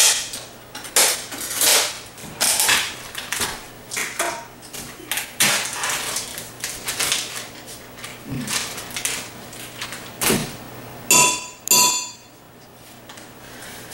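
A metal spoon scraping and knocking against a glass measuring cup as butter is packed into it, in irregular strokes. Two short beeps come near the end.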